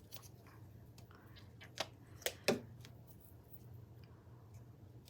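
A few light clicks and knocks from painting supplies being handled on a table, the loudest about two seconds in, over a steady low hum.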